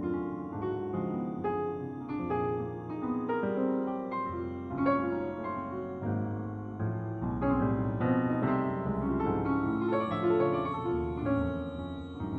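Keyboard music: piano-like notes played in a steady rhythm over sustained low bass notes, with a new bass note entering about seven seconds in.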